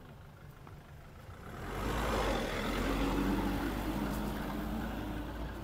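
A motor vehicle's engine running close by, with a low rumble. It swells in about a second and a half in and slowly fades as the vehicle passes.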